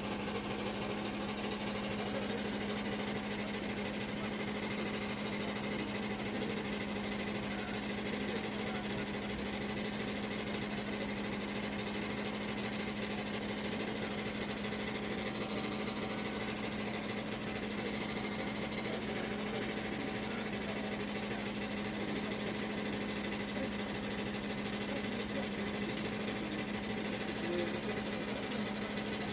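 Toyota Wish 3ZR engine running steadily at idle. The engine has a cylinder 2 misfire (code P0302), traced to a bad Valvematic solenoid and dropped valve shims.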